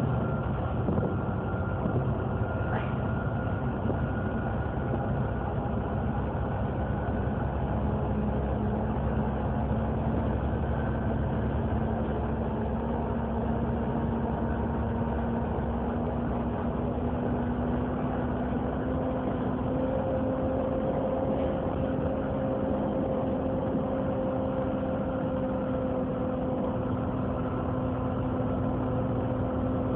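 Volvo B7TL double-deck bus standing with its diesel engine idling and the engine cooling fan running with a vacuum-cleaner-like whine ("hoovering"). The whine slowly climbs in pitch through the middle and then holds steady, with a higher tone joining about two-thirds of the way in.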